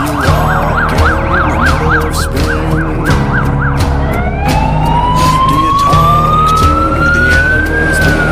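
Fire engine siren: a fast yelp of about four sweeps a second that switches about four seconds in to a slow wail, rising in pitch and starting to fall near the end as the truck goes by.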